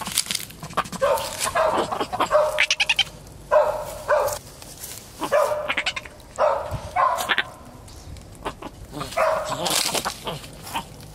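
Repeated short animal calls, coming in about six separate bouts.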